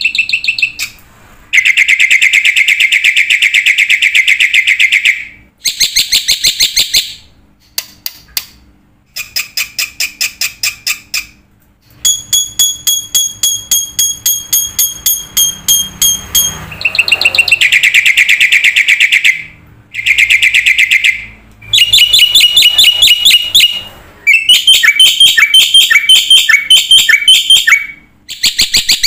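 A bird singing a series of rapid trills and chirps, in phrases of a second or more separated by short pauses.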